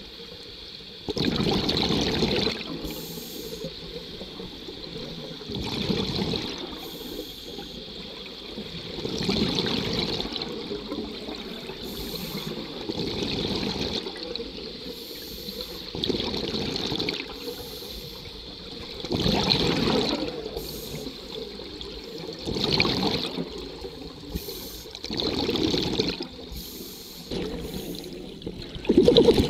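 Scuba regulator breathing heard underwater: about eight bubbling bursts of exhaled air, each a second or two long and coming every three to four seconds, with a quieter hiss between breaths.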